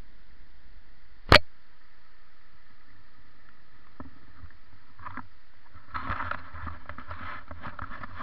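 Mountain bike rolling down a dry dirt forest track: a steady background hiss, one sharp knock about a second in, then from about six seconds on a dense crackle and clicking of the tyres over dirt and dry twigs.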